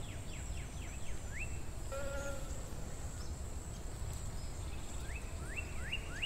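Outdoor ambience: small birds chirping in short quick sweeping notes over a low steady rumble and a thin steady high whine. A short pitched call sounds about two seconds in.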